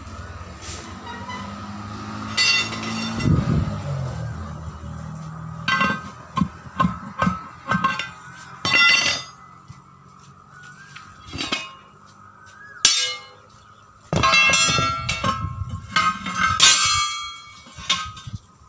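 Irregular hammer blows and clangs on steel, each with a short metallic ring, coming in clusters and densest near the end.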